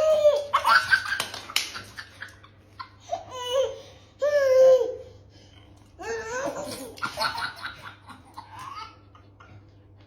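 A baby laughing in several high-pitched bouts of giggles, with short pauses between them.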